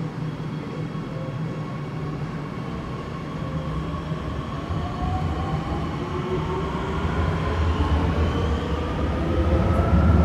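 Shenzhen Metro Line 2 subway train pulling away from the platform. Its motor whine rises in pitch, and its running noise grows louder as it speeds up.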